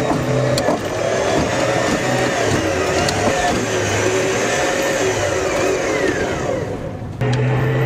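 A boat's engine running steadily, with a dense wash of wind and water noise over it; the sound drops out for a moment near the end, then carries on.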